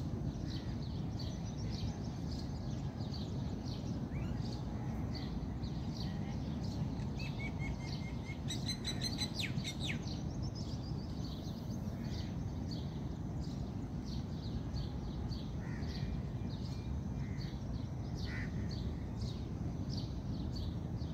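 Small birds chirping over and over, with a fast trill of repeated notes about nine seconds in, over a steady low background rumble.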